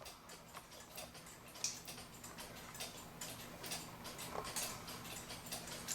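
Faint light clicks and ticks of small plastic and metal clock-movement parts being handled, over a low steady hum.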